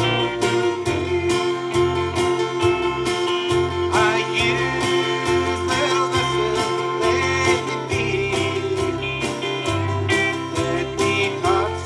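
Live gospel song: a man singing over a strummed acoustic guitar, with a bass line and a steady beat underneath.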